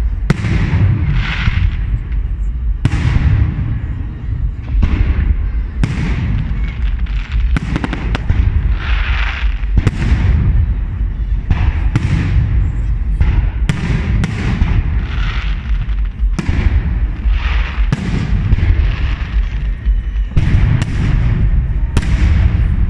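Aerial fireworks salute: shells bursting overhead one after another, about one sharp bang a second, over a steady low rumble.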